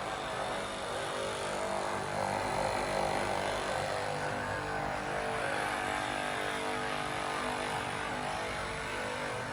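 A steady machine hum made of many even tones, holding level without a break.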